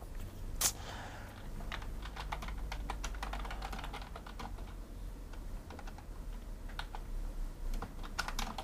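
Computer keyboard typing: irregular keystroke clicks at an unhurried pace, with one louder click about half a second in.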